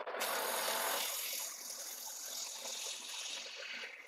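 Engine lathe facing a 12-inch disc of 1018 hot-rolled steel: the tool cuts across the spinning face with a steady rushing noise, a little louder over the first second.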